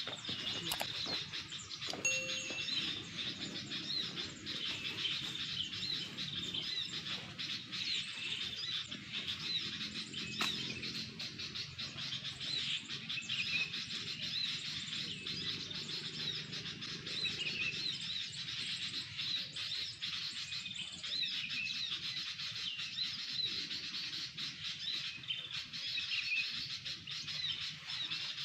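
Murai papua (saeran) calling: quick, repeated high chirps and short whistled notes, over and over, as used in luring the bird.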